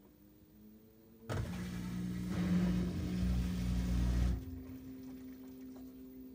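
Kenmore 41162 front-load washer making its unusual loud "eearhhh" noise with a little rattling during the rinse cycle: it starts suddenly about a second in, holds a steady low drone for about three seconds and cuts off, leaving a quieter steady hum. The owner suspects it comes up when the water drains.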